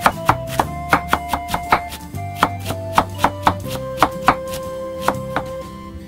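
Santoku knife chopping onion finely on a wooden cutting board: quick, irregular knocks of the blade on the board, about three or four a second, that stop shortly before the end.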